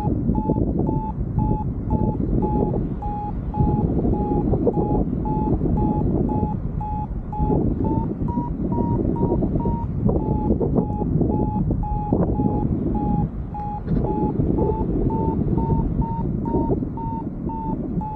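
Paragliding variometer beeping steadily, about two to three short beeps a second, its pitch drifting slightly up and down: the vario's signal that the glider is climbing in lift. Gusty wind noise rumbles over the microphone underneath.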